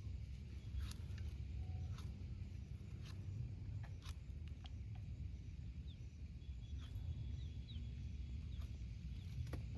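Outdoor ambience: scattered light clicks, irregular, about one every half second to a second, over a steady low rumble, with a few faint short bird chirps.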